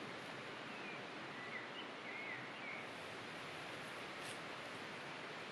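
Woodland ambience: a steady outdoor hiss with a few short bird chirps in the first few seconds.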